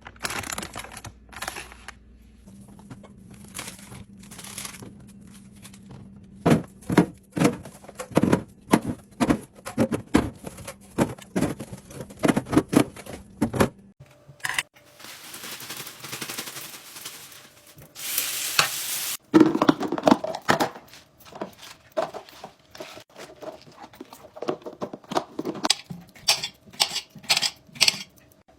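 Containers and packaging being handled and set down while a fridge is restocked: a long run of clicks, taps and knocks. About halfway through there is a soft hiss, then a short loud rush, before the tapping starts again.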